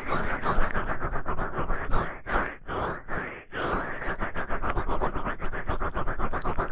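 Ear pick scraping and scratching in rapid short strokes, very close up, with a few brief pauses.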